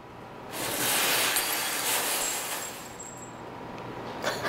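Potassium permanganate, magnesium powder and glycerin burning violently in a small crucible: a loud rushing hiss that starts about half a second in, holds for about two seconds and then dies away.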